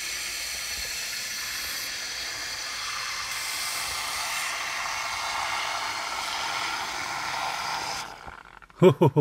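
Aerosol can of air-conditioning cleaning foam spraying through its extension tube into the car's ventilation duct: a steady hiss that stops about eight seconds in. A short loud burst of a man's voice right at the end.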